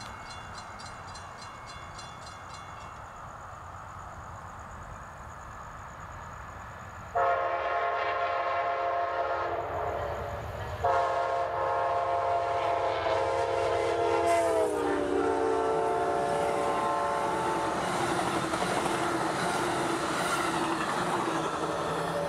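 Grade-crossing bell ringing at first. Then an Amtrak diesel locomotive sounds its horn in two long blasts, the second dropping in pitch as the locomotive passes. The passenger train then rumbles and clatters steadily by.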